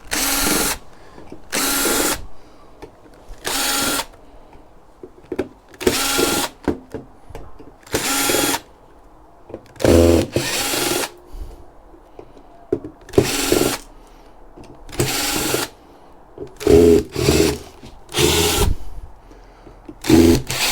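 Power drill driving screws out in short runs of under a second, repeated about every two seconds, with the mechanical handling of the metal tray between runs.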